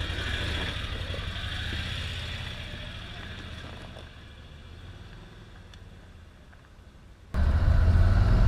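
Can-Am Defender side-by-side's engine running with a steady low hum that gradually fades over several seconds. About seven seconds in it cuts abruptly to much louder engine noise.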